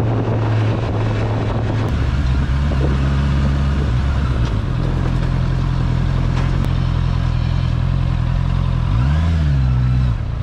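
Honda CBR650's inline-four engine running steadily while riding, with wind rush on the microphone that drops away about two seconds in. A little after nine seconds the engine pitch briefly rises and falls.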